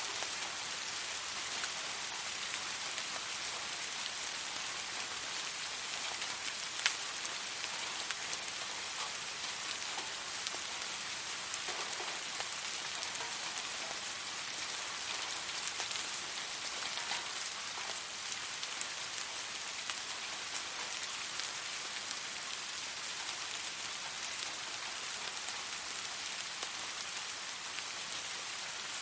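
Steady rain falling on a surface, an even hiss with scattered individual drop ticks, one sharper tick about seven seconds in.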